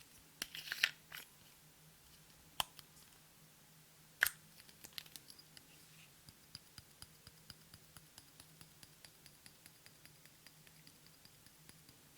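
Clear slime worked by hand, giving small sticky clicks and crackles: a few louder crackles and two sharp snaps in the first four seconds, then quieter clicks about three a second.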